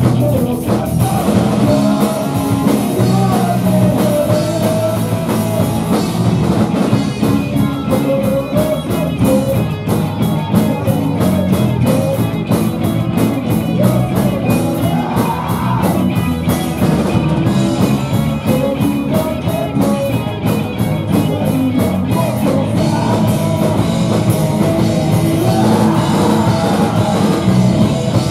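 Rock band playing live at full volume: distorted electric guitar, bass and a driving drum kit, with a singer's voice over them.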